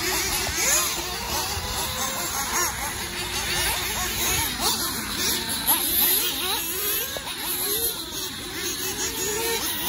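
Several radio-controlled off-road race cars running together, their motors' whine repeatedly rising and falling in pitch as they accelerate and brake around the track.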